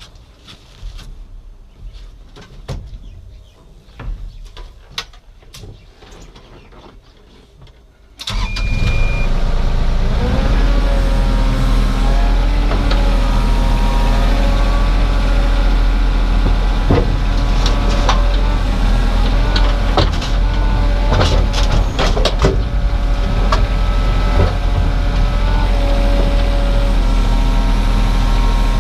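A few clicks and knocks, then a heavy diesel machine's engine starts about eight seconds in and runs steadily and loudly.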